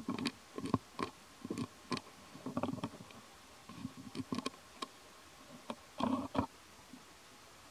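A young macaque chewing and crunching lotus seeds: a run of short, irregular clicks and smacks with quiet gaps between them, a denser cluster about six seconds in.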